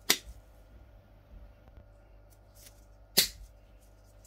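Two sharp clicks about three seconds apart, over a low steady hum.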